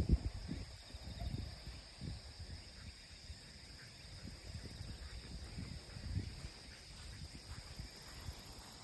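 Irregular low rustling and soft bumps close to the microphone, heard as the dog sniffs through the grass on its leash, over a steady high insect drone.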